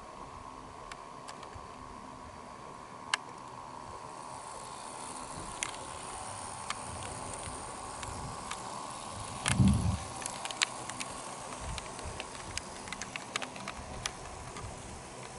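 HO-gauge model train rolling along KATO Unitrack, its wheels clicking over rail joints and turnouts, the running noise growing louder from about four seconds in and the clicks coming faster toward the end. A single low thump, the loudest sound, a little under ten seconds in.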